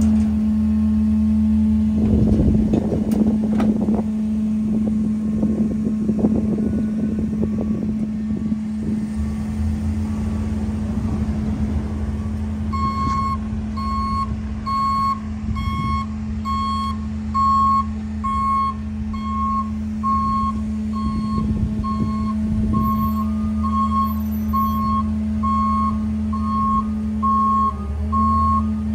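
Garbage truck engine running with a steady drone, while trash clatters and rattles as a mini garbage truck's dump body tips it into a rear loader's hopper for about ten seconds. From about halfway on, a truck's reversing beeper sounds a regular beep, a bit more than once a second.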